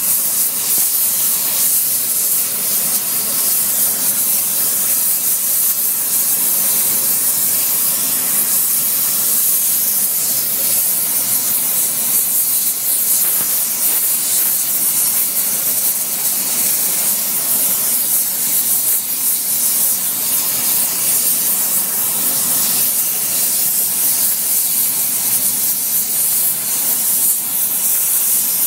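Gas brazing torch flame hissing steadily while it heats the edge of a steel hammer to braze on a hardfacing alloy cord.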